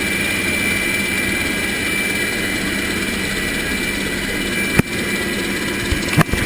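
UH-60 Black Hawk helicopter running steadily, a constant turbine whine over rotor and engine noise, with a sharp click a little before five seconds in and two more near the end.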